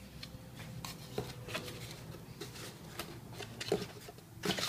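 Faint handling noise: scattered light clicks and rustles of a hand on a foam model plane's airframe, with a couple of louder taps near the end.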